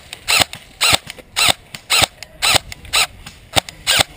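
Airsoft gun firing a steady string of single shots, about two a second, each a short mechanical snap with a brief whine.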